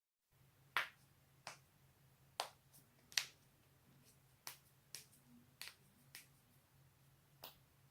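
Human joints being cracked: about nine sharp, short pops at irregular intervals, over a faint low hum.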